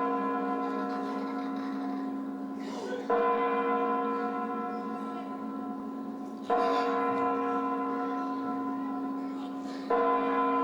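Clock chimes striking midnight on a deep bell: three strokes about three and a half seconds apart, each ringing on and slowly fading.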